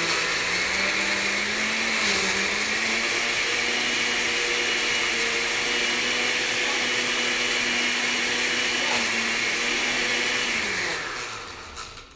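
Countertop blender running on high, churning frozen pineapple, vanilla ice cream and pineapple juice. The motor pitch climbs a little over the first couple of seconds, holds steady, then winds down about eleven seconds in.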